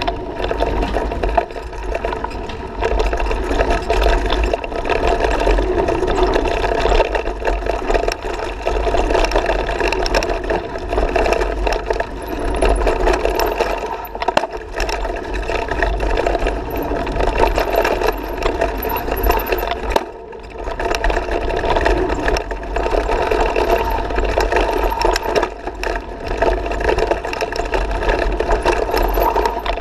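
Mountain bike riding fast down a dirt trail, heard from a camera on the bike or rider: continuous rattling and knocking of the bike over bumps and roots, tyres on dirt, and wind buffeting the microphone. The sound eases briefly about two-thirds of the way through.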